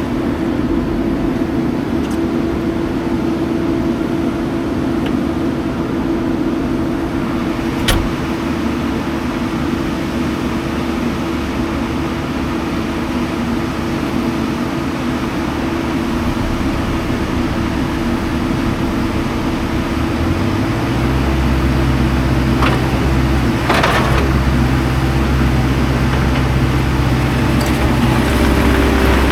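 JCB skid steer's diesel engine running steadily, then revving up and holding at higher revs about two-thirds of the way through. A single sharp knock comes about a quarter of the way in, and fainter knocks follow later.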